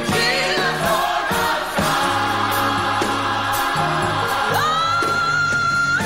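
Gospel choir singing with accompaniment. About four and a half seconds in, a high note slides up and is held.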